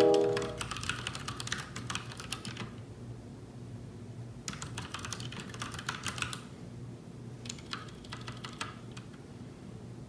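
Typing on a Ducky One 2 TKL mechanical keyboard with Cherry MX Brown switches: quick runs of key clacks in three spells with short pauses between. Background music fades out in the first second.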